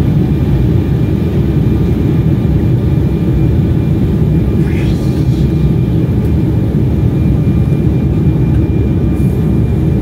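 Steady cabin roar of an Embraer 175 twin-jet on descent: its two GE CF34-8E turbofans and the rush of air past the fuselage, heard from a window seat over the wing. A faint thin high hum runs through it.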